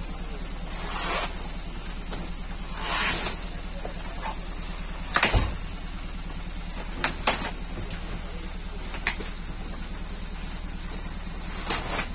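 Rustling and scraping as camouflage fabric and cardboard boxes are handled and shifted, in a handful of short bursts, with one sharp knock about five seconds in, over a steady background hum.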